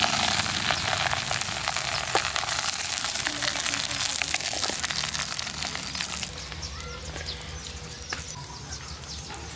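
Hot liquid hissing and bubbling in a metal pot over a wood fire, with many small crackles. The hiss drops away about six seconds in, leaving fainter crackles and a few short chirps.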